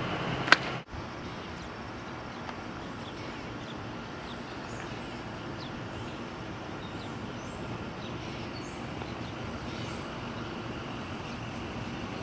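Steady outdoor background noise with faint bird chirps scattered through it. About half a second in, a single sharp, loud chirp-like sound rises above the street noise, and the sound breaks off for an instant about a second in.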